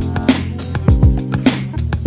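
Background music with a steady beat: deep kick drums about twice a second under sustained instrumental tones.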